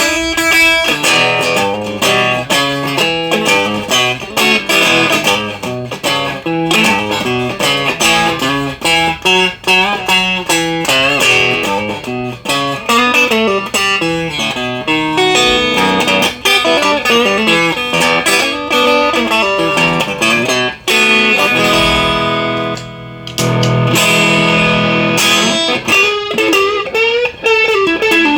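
Fender Master Built Jason Smith NOS Stratocaster electric guitar played solo in a demo, with quick single-note lines and chords. It breaks off briefly about two-thirds of the way through, then comes back with longer, ringing notes.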